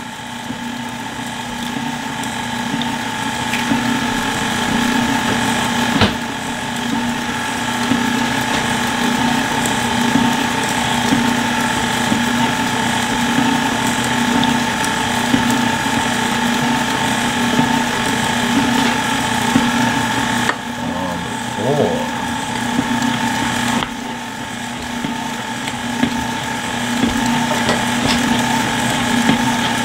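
KitchenAid stand mixer running with its wire whisk attachment, beating an egg into thick brownie batter in the steel bowl: a steady motor and gear whir, with a single click about six seconds in.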